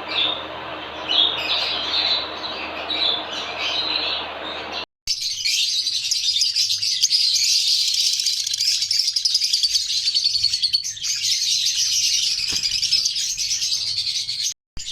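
A flock of pet parrots chirping. Separate chirps over a low background hum give way after a short break to a dense, continuous chorus of high chirping.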